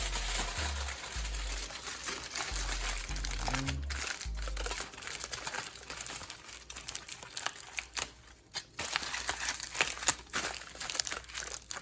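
Aluminum foil crinkling and crackling, irregularly, as it is wrapped and pressed around a mason jar.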